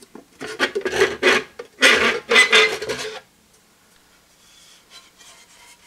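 Die-cast aluminium top cover of a Mettler PL3000 electronic scale scraping against the scale's housing as it is worked loose and lifted off, in two loud spells of scraping over about three seconds, then only faint rubbing.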